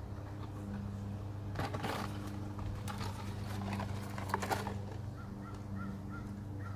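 Short bouts of scraping and clicking from hand work in a crack at the foot of a concrete foundation wall, over a steady low hum.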